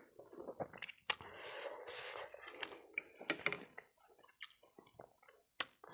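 Wet slurping and chewing of a mouthful of pork keema noodles, with a few sharp clicks of fork and spoon against the plate.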